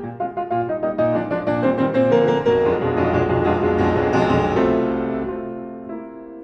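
Fazioli grand piano played solo in classical music: a fast, dense stream of notes, loudest about two seconds in, thinning and fading over the last second or so.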